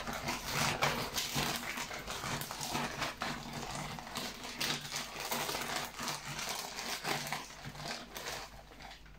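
Zip-lock plastic bag of cucumbers, dill and salt crinkling and rustling as it is shaken and squeezed by hand to mix the contents, a dense run of crackles that thins out near the end.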